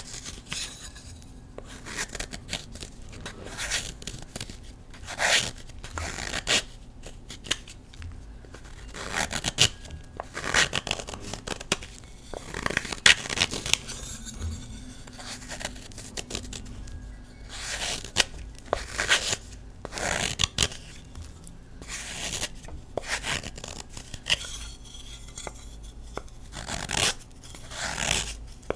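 A knife blade shaving thin flakes off a block of Colift gym chalk: dry scraping strokes, irregular, about one a second.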